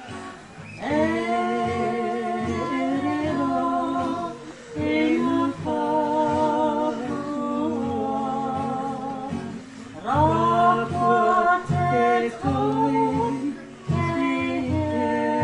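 Slow song sung with long held notes over a plucked acoustic guitar, in phrases that break off briefly about every four to five seconds.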